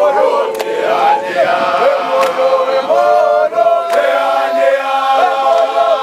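A large group of men singing an igwijo, a Xhosa chant-song, together in unison with long held notes.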